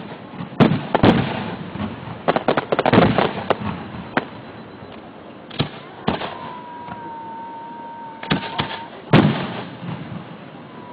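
Fireworks going off: a string of sharp bangs and crackles, some in quick clusters, heard through a mobile phone's microphone. A steady high tone sounds for a few seconds in the second half.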